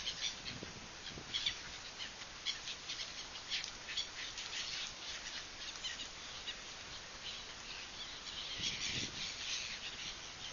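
Several birds chirping and calling in short, quick notes over a steady faint background hum, busiest about eight to nine seconds in.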